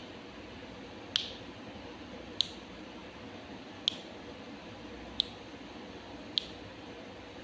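Five sharp clicks, evenly spaced about one every second and a quarter, over a faint steady background hiss.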